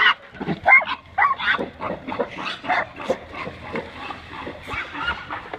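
Pigs squealing and grunting in a quick, irregular run of short calls, loudest in the first second.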